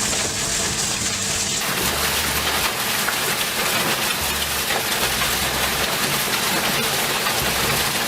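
Roadheader's rotating cutting head grinding into rock: a loud, steady, harsh noise that turns brighter about a second and a half in. A soft background music bass line runs beneath it.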